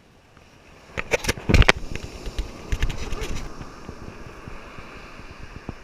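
A quick cluster of sharp knocks and scraping about a second in, with rough rustling after, over steady wind and surf hiss on a beach.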